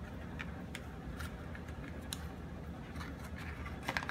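Small plastic toy pieces being handled, with a few faint clicks and taps, over a low steady room hum; a small cluster of clicks comes near the end.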